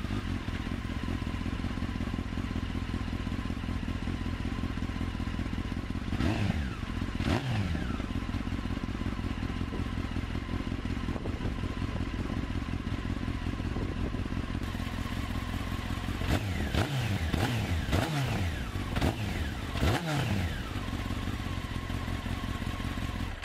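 2003 Honda CBR954RR's inline-four idling through an aftermarket Akrapovič carbon exhaust, with two quick throttle blips about six and seven seconds in and a run of several more blips in the later part.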